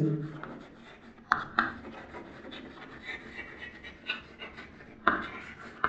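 Chalk writing on a blackboard: soft scratching strokes with a few sharper taps.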